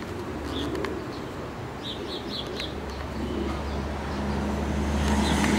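A motor vehicle's low rumble, growing louder through the second half as it passes, with a few short bird chirps in the first half.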